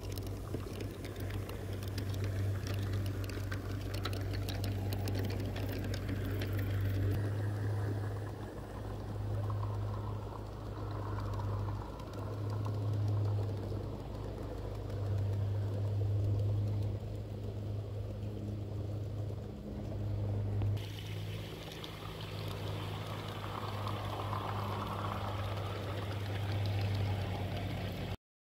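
G-scale model train running on outdoor garden track: a steady low hum from the locomotive that swells and fades, with the rattling rumble of the wheels on the rails. There is a quick run of clicks in the first few seconds, and the sound changes abruptly twice.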